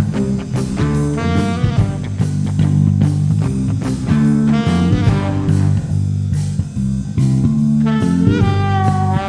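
Blues-rock band recording playing: guitar over bass guitar and drums, with a steady beat.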